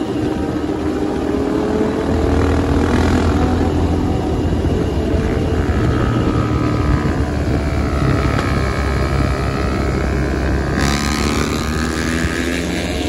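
Small motorcycle engines running at road speed as the bike is ridden, the engine pitch rising and falling with the throttle, over a steady rush of wind and road noise.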